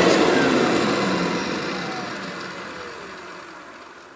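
Kirby vacuum's motor and fan winding down: the whine slides steadily lower in pitch and fades away over about four seconds as the fan coasts to a stop.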